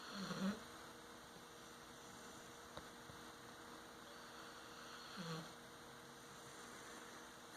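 Sleeping dog snoring: two short, low snores about five seconds apart, one near the start and one about five seconds in, over a faint steady electrical hum.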